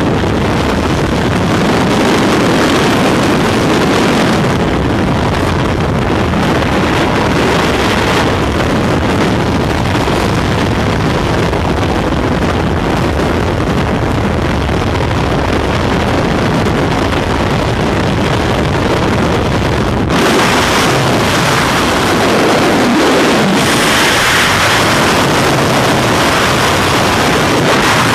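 Loud, steady wind rushing over the camera microphone during a tandem skydive. About twenty seconds in it changes abruptly, with less low rumble and a brighter hiss.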